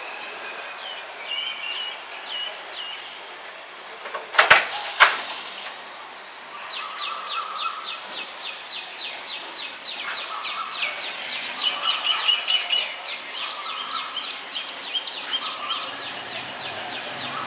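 Several wild birds chirping and calling over a steady outdoor hiss. A fast run of repeated downward chirps, roughly four a second, starts about six seconds in and goes on for several seconds. Two sharp clicks come about four and a half and five seconds in.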